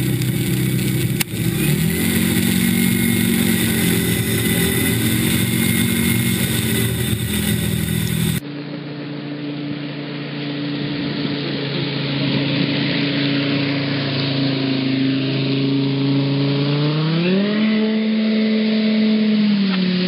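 Car engine held at high revs while the car skims across a river, over a hiss of water spray. About eight seconds in the sound cuts to a second clip, where the revs climb sharply about two-thirds of the way through, hold, and then ease off near the end.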